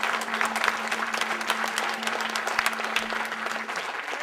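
Audience applauding, with many hands clapping. A steady low tone is held underneath and stops near the end.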